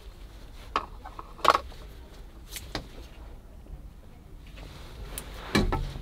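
Scattered light clicks and knocks as car wiring connectors are handled, about half a dozen spread over several seconds, with a slightly fuller bump near the end.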